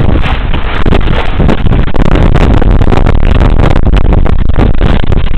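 Violent storm wind gusting hard, buffeting the microphone with a loud, constant rumble.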